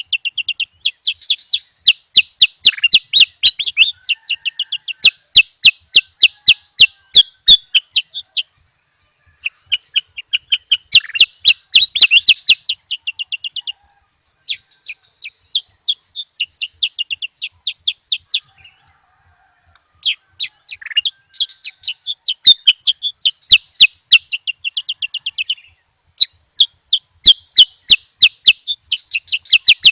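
A bulbul singing a fast chattering series of sharp, clipped notes, about eight a second, in runs of several seconds broken by short pauses. A faint steady high hiss sits behind it.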